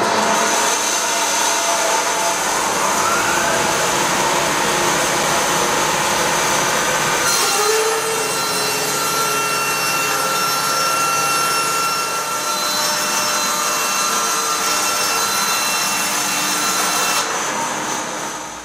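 Pilous CTR 800 S log band sawmill cutting a board from a log: the band blade running through the wood with a loud, steady sawing noise. A rising whine comes in a few seconds in, and the noise eases off near the end.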